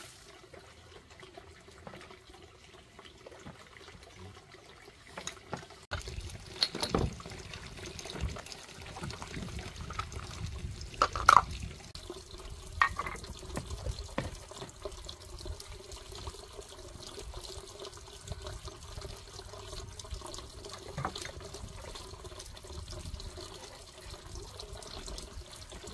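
Dishes being washed by hand in a plastic basin: water sloshing and trickling, with a few sharp clinks of bowls and pots, the loudest about eleven seconds in.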